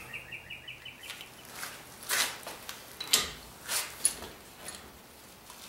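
A socket ratchet clicking as it is worked to drive a 5-ton hydraulic gear puller pressing on a seized rear hub flange. A quick run of about ten ticks comes first, then a handful of separate, sharper clicks.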